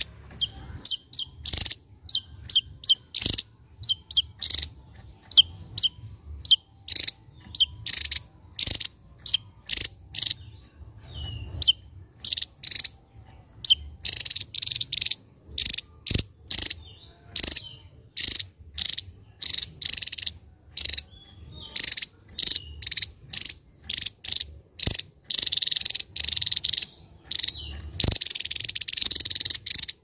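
Javan tesia singing: a long run of short, sharp high-pitched notes, two or three a second with brief pauses, turning into a dense continuous high buzz in the last few seconds.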